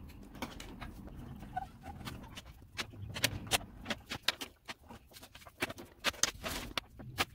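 Markers and crayons colouring on paper laid on a wooden table: irregular quick taps and scratches of the tips on the paper.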